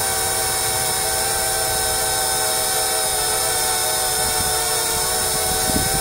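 Parrot Bebop 2 quadcopter hovering, its propellers giving a steady whine of several even tones that holds pitch throughout.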